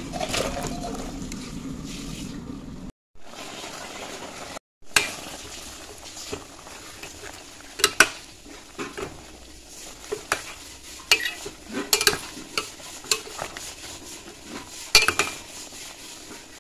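A spatula stirring a steaming steel pot of curry, with sharp, irregular knocks and scrapes against the steel sides over a steady hiss from the simmering pot. Vegetables are tipped in from a steel bowl near the start.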